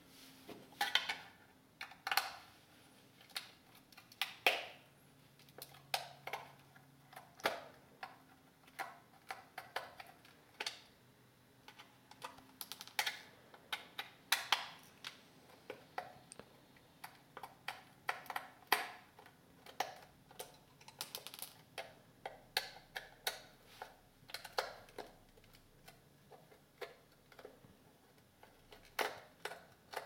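Irregular, quiet clicks and taps of a small plastic device case being handled while its Phillips screws are unscrewed.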